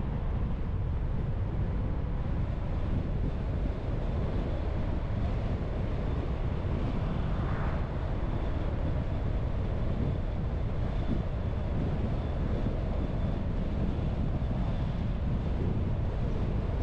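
Car driving at steady speed: continuous low rumble of road and wind noise, with a faint steady high tone and a brief swell just past halfway.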